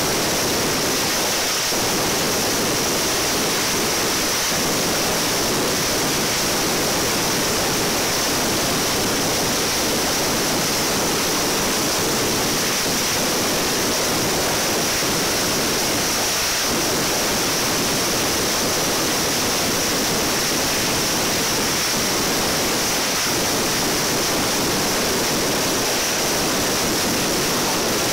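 Mascletà firecrackers going off in a dense, continuous barrage, the bangs merging into one steady roar with no single report standing out.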